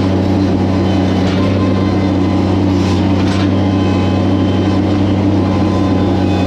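A heavy engine running steadily at a constant speed, a deep even hum with no change in pitch.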